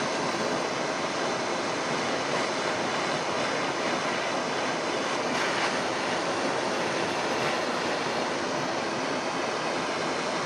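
Gas torch burning with a steady roaring hiss while it heats a small steel nut toward cherry red before it is quenched in oil for blackening.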